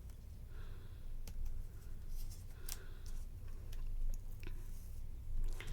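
Scattered light clicks and soft rustles of paper and small craft tools being handled, such as scissors and paper, over a steady low hum.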